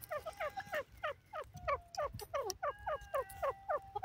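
Grey francolin calling: a fast, shrill run of short falling notes, about five a second. Longer held whistled notes lie over it at the start and again from about halfway on, as if more than one bird is calling at once.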